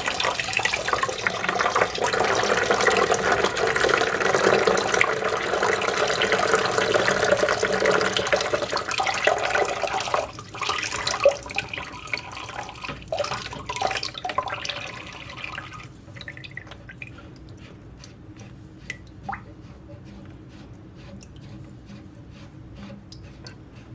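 Leftover water draining out of a toilet tank into a bucket: a steady pour for about ten seconds that thins out and, for the last several seconds, drops to scattered drips.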